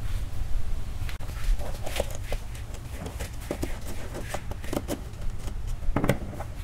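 Scattered small clicks and knocks of hand tools and plastic miniature circuit breakers being handled on a wooden table, as a screwdriver works the breakers' terminal screws, with louder knocks about two seconds in and near the end. A steady low rumble runs underneath.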